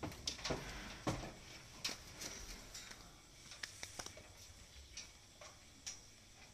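Irregular light knocks and clicks of cattle hooves on a wooden truck bed, more frequent in the first couple of seconds and sparser after.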